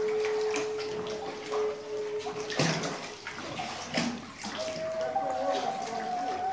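River water sloshing and splashing around a kayak, with two louder splashes about two and a half and four seconds in. A steady held tone runs underneath and gives way to a higher one near the end.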